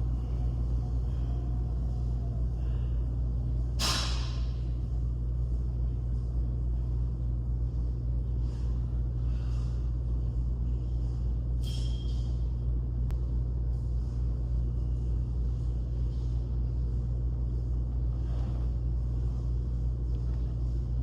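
Steady low rumble of gym room ambience, with two short sharp knocks about four and twelve seconds in.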